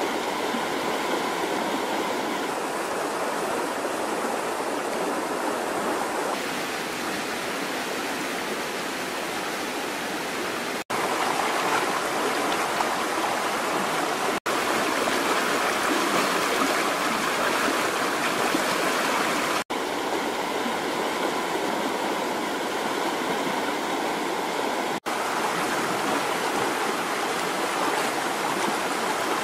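Swollen, muddy river rushing steadily over rocks, with four split-second dropouts in the sound.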